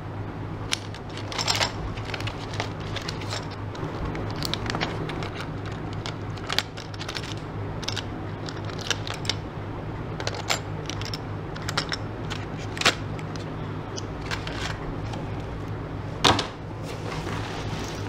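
Hands handling a plastic blister pack and small metal zipper sliders in a plastic sleeve: scattered clicks, taps and crinkles, over a steady low hum.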